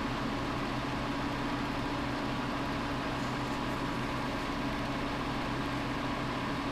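Steady mechanical hum with an even hiss and a few held tones, unchanging, like a fan or appliance running in the room; no separate sounds from the beadwork stand out.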